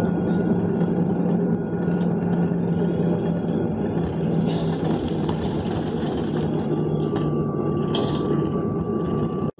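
Cabin noise of a Boeing 737-800 taxiing, heard from a window seat: its CFM56-7B engines at low thrust give a steady hum with a low drone and a thin high whine. The sound breaks off for an instant near the end.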